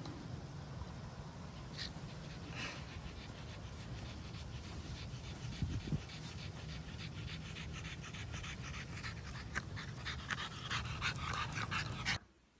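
A dog panting rapidly, the breaths growing louder and closer toward the end, over a steady low rumble of wind on the microphone.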